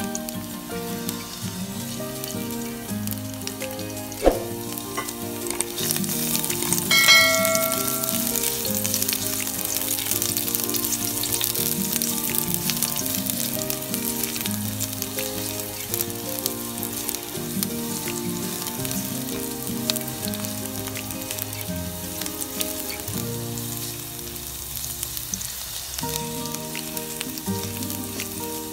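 Chopped garlic sizzling in hot oil in a non-stick pan, stirred now and then with a silicone spatula. A click comes about four seconds in, and a brief ringing tone about seven seconds in.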